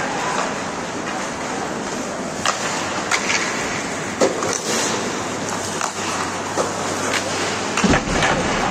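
Ice hockey play: skate blades scraping on the ice under a steady rink din, with several sharp clacks of sticks and puck, the loudest near the end.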